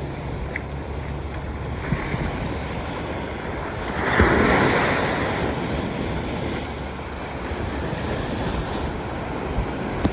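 Ocean surf washing on the shore, with a wave breaking louder about four seconds in, and wind buffeting the microphone.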